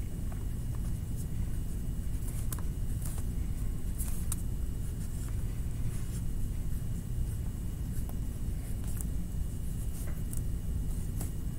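Steady low rumble, with short faint scratchy strokes of a black drawing tool on paper coming at irregular moments as a drawing is outlined.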